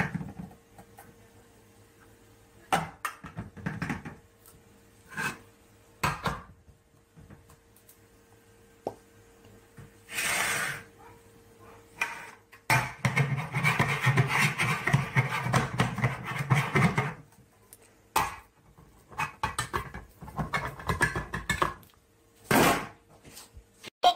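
Metal food tins knocking and clicking against each other and a wooden worktop as they are stacked, with a few seconds of rubbing and scraping about halfway through.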